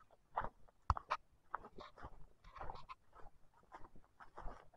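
Footsteps crunching on a dirt-and-stone hiking path covered with dry leaves, in irregular short steps.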